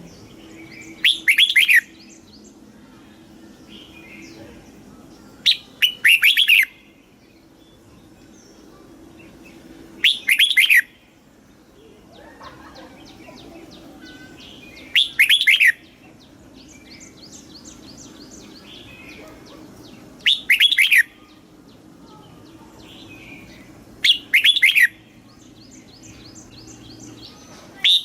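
Red-whiskered bulbul singing: six short, loud, liquid song phrases about every four to five seconds, with fainter chirps between them.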